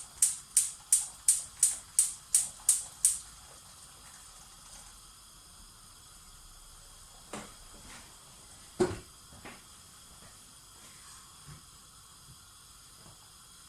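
Gas hob's spark igniter clicking rapidly, about three clicks a second, as the burner is lit; the clicking stops about three seconds in. After that comes a faint steady hiss with a couple of light knocks.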